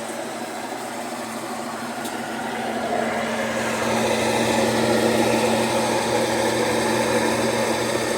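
Consul CWC 10 washing machine spinning with a loud mechanical drone and a steady hum, growing louder about three seconds in as the spin builds. The noise is typical of a worn mechanical assembly (transmission) that needs replacing.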